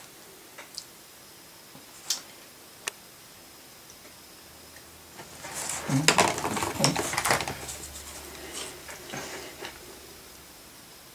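A few light taps, then several seconds of clattering and rustling, loudest around the middle: small objects being handled on a table.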